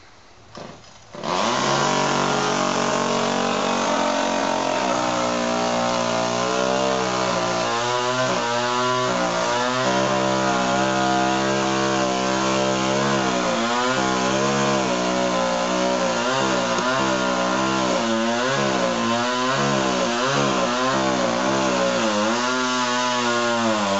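Chainsaw starting about a second in and cutting into a palm trunk, its engine pitch wavering and dipping as the chain works through the wood under load.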